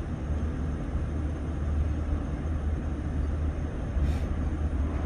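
ÖBB Regionalexpress passenger train running at speed, heard from inside the carriage as a steady low rumble.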